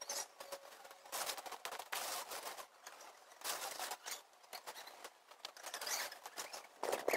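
Nylon tent fly rustling and crackling as it is handled and fastened over a small dome tent, in irregular spells with short quieter gaps.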